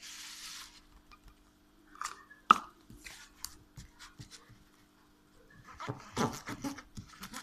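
Spoon scraping and clinking in a bowl as slime ingredients are mixed, with one sharp clink about two and a half seconds in and a busier run of small scrapes and clicks near the end.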